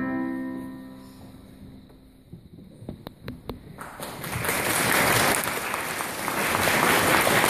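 The last held chord on an electronic keyboard fades away, a few single claps follow, and the audience breaks into applause about four seconds in, growing louder.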